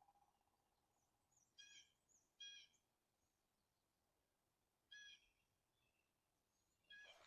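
Near silence broken by four short, faint bird calls, spread out over the seconds.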